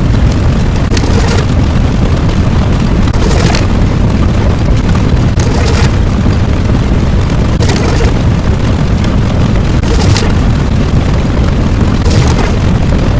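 Loud, unbroken rumbling explosion sound effect, with a sharp crack about every two seconds over the deep rumble.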